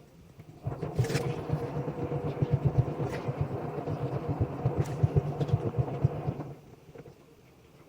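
Haier front-loading washing machine drum turning during its drum self-clean cycle, a low rumble with churning pulses that runs for about six seconds and then stops as the drum pauses.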